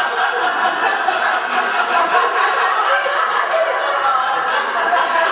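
Audience laughing steadily throughout, many voices at once.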